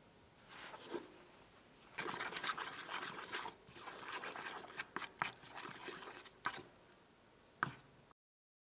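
Heavy cream poured briefly over dark chocolate chips in a stainless-steel bowl, then a wooden spoon stirring the melting chocolate. The stirring is a wet scraping with frequent clicks of the spoon against the metal, running for about five seconds, with a sharper click near the end before the sound cuts off.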